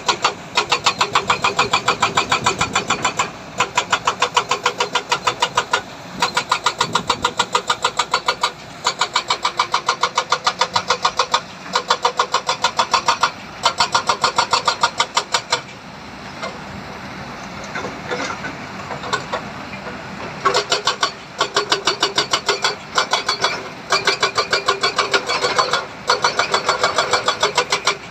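Heavy machinery engine running with a rapid pulsing rattle that comes in repeated bursts of a couple of seconds, separated by short dips, with a steadier, quieter stretch about two thirds of the way through.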